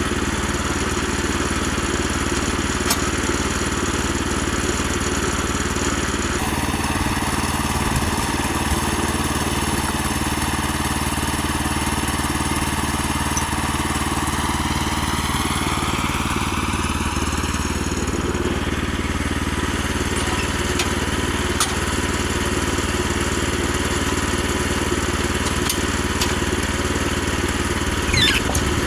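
Woodland Mills HM122 portable bandsaw mill's gas engine running steadily as the mill cuts, with a rising whine from about 13 to 18 seconds in and a brief sharp sound near the end.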